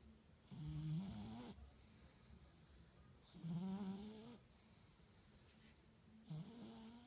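A cat snoring: three pitched snores about three seconds apart, each lasting about a second.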